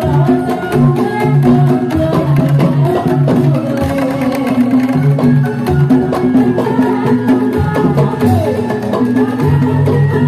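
Javanese gamelan music accompanying a dance: hand-drum strokes over a steadily repeating pattern of struck pitched tones.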